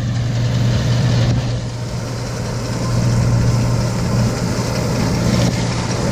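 Tractor engine running at a steady, even drone, driving a John Deere baler through its wrap cycle.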